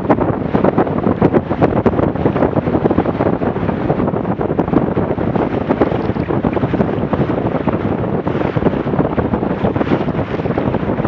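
Strong wind buffeting the microphone of a fast-sailing Weta trimaran, with water rushing along the hull, in rapid gusty pulses.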